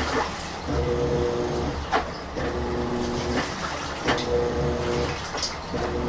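Old top-loading washing machine agitating a load of bedding in water. The motor hums in short runs of about a second, stopping and starting again, with water sloshing and splashing roughly every two seconds.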